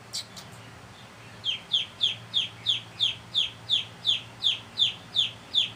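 A young chick held in the hand peeping loudly in distress: a steady run of short, falling peeps, about three a second, starting a little over a second in. A faint click of handling comes just at the start.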